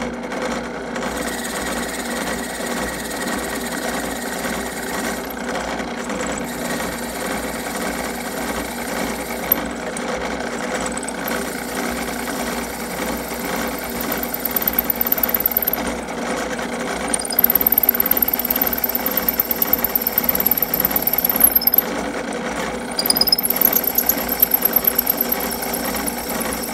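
Drill press running steadily while a 27/64-inch bit is plunged repeatedly into a stabilized wood pen blank. From about halfway the cutting turns into a high squealing chatter that comes in spells of a few seconds, breaking off each time the bit is drawn out to clear shavings, and getting louder as the hole goes deeper.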